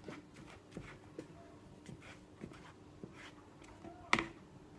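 Soft scraping and light taps of a silicone spatula stirring flour in a plastic bowl, with a brief louder knock about four seconds in.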